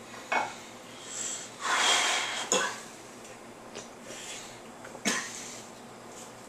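A man's loud breathy cough about two seconds in, reacting to the stench of Limburger cheese. A few sharp clicks of a fork on a plate come before and after it.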